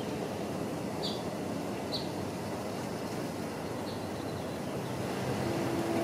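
Steady outdoor background noise, a low even rush, with a few short high chirps about a second in, at two seconds and near four seconds.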